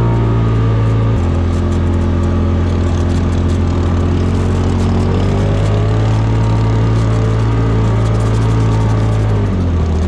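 Side-by-side UTV engine running hard at speed on a dirt trail. Its pitch drops about a second in, climbs slowly again, and dips briefly near the end. Wind rushes over the microphone.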